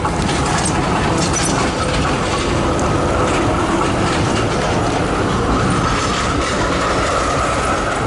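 Z3-class tram running past on its rails: a steady rumble of steel wheels with a faint high whine held through it.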